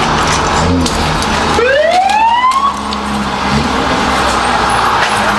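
Emergency vehicle siren sweeping upward in pitch once, about a second and a half in, over steady street noise.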